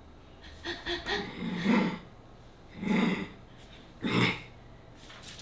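Toy poodle growling playfully in three short bursts about a second and a quarter apart, with a few light taps before the first.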